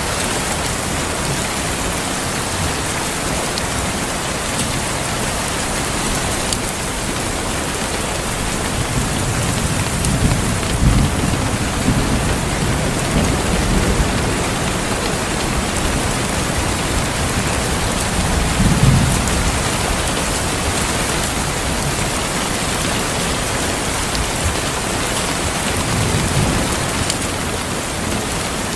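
Steady, heavy rain hissing, with several low rumbles of distant thunder rolling in and out. The strongest rumble comes about two-thirds of the way through.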